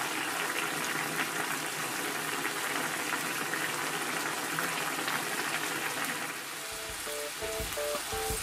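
Broth boiling hard in a frying pan around pieces of thick fried tofu, a steady bubbling hiss. Light background music comes in about seven seconds in.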